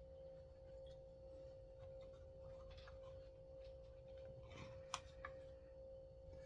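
Faint clicks and light scrapes of small parts of a chainsaw's recoil starter being handled and adjusted, with one sharper click about five seconds in, over a steady faint hum.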